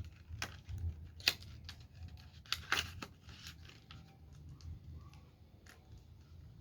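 Packaging being handled and opened by hand: a few sharp clicks, then a brief scraping rustle a little before halfway, then quieter handling noise.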